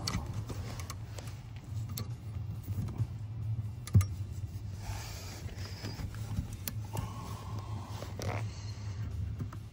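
Seat-cover straps and metal clips being worked under a truck seat: scattered clicks, clinks and rustling, with one sharp click about four seconds in, over a steady low hum.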